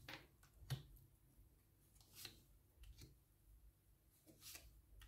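Tarot cards being handled and laid down: a few faint, short slides and taps of card on card, the sharpest about three-quarters of a second in.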